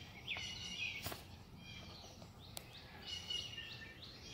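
Wild birds chirping and singing in the background, a string of short high chirps. Two sharp clicks, about a second in and again about two and a half seconds in.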